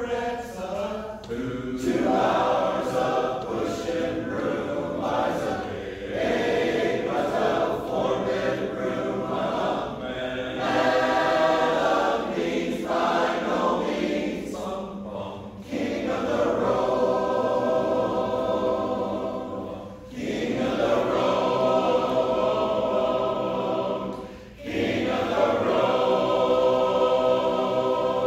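Men's barbershop chorus singing a cappella in close harmony: long held chords in phrases, with short breaks between phrases in the second half.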